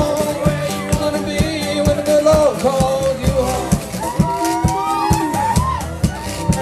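Fingerpicked 12-string acoustic guitar with a steady thumbed bass, and a man singing over it, played live.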